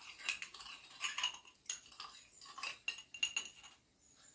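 Spoon stirring sand and water in a glass tumbler, clinking over and over against the glass, the stirring stops near the end.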